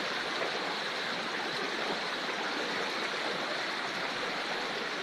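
Floodwater rushing: a steady, even rush of flowing water.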